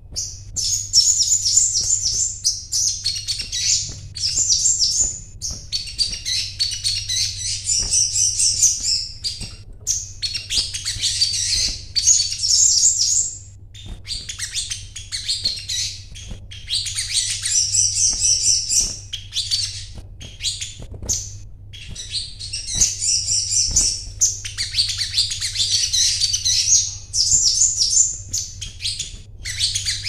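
Male olive-backed sunbird singing in long, rapid, high-pitched twittering phrases, one after another with short breaks between them.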